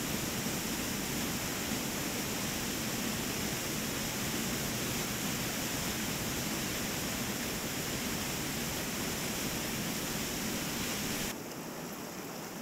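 Steady, even rush of a waterfall. About eleven seconds in it gives way to the softer rush of a creek running over shallow rapids.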